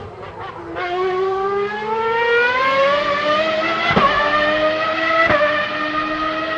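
Old V12 Formula One engine running hard: after a short drop in pitch it climbs steadily in pitch as it accelerates, with two sharp breaks and small pitch drops about four and five seconds in, like quick upshifts.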